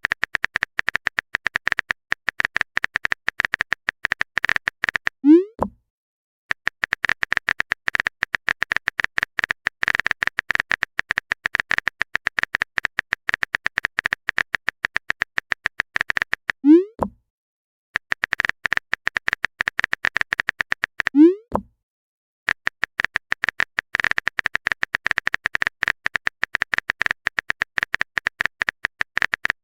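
Chat-app sound effects: long runs of rapid keyboard-typing clicks, each broken off by a short rising 'bloop' as a message is sent. There are three bloops.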